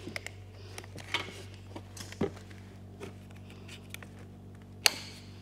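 Scattered small clicks and knocks of hands fitting a cable connector onto a battery in a plastic battery box, with a sharp click near the end, over a faint steady hum.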